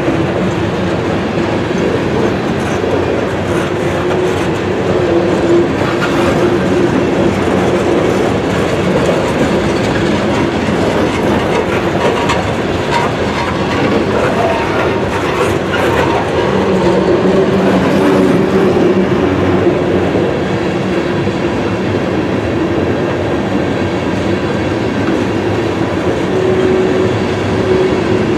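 Freight train cars rolling steadily past: centerbeam flatcars loaded with lumber, then tank cars, with a continuous rumble of steel wheels on rail and some clacks over rail joints. A steady ringing tone comes and goes.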